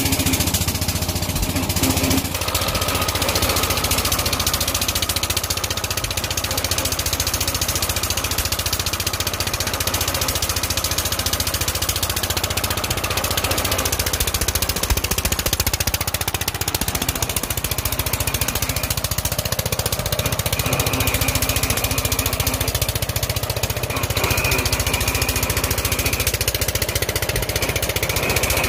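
Water-well boring rig's engine running steadily with an even beat, driving the rig's rope winch.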